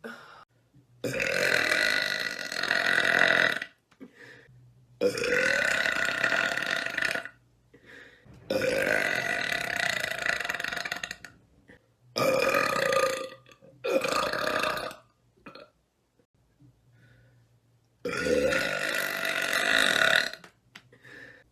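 A woman burping: six long, loud, drawn-out belches, each lasting one to three seconds, separated by short pauses, with a longer pause of about three seconds before the last one.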